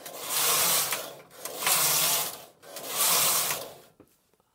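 Carriage of a Silver Reed 24-stitch punchcard knitting machine pushed across the needle bed three times, each pass a rattling, clattering run of about a second, with brief pauses between. It is knitting plain stockinette rows with the punchcard locked so it no longer patterns.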